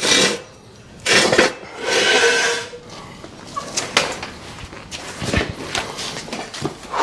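A person breathing hard and grunting while straining under a heavy rear axle, in several short gasps during the first three seconds. A few sharp knocks follow, one about four seconds in and a louder one about five and a half seconds in.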